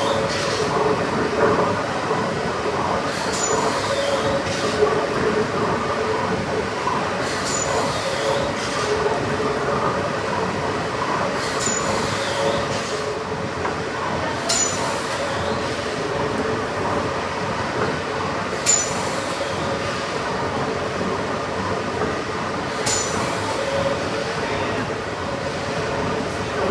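Kempton's giant triple-expansion steam pumping engine running in steam: a steady mechanical rumble and clatter, with a sharp hiss-and-click recurring about every four seconds as the engine turns over slowly.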